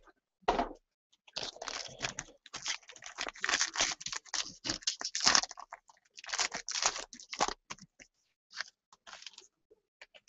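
Crinkling and tearing of plastic wrapping as a trading-card box is unwrapped and opened by hand, in a dense run of irregular rustles that thins out near the end.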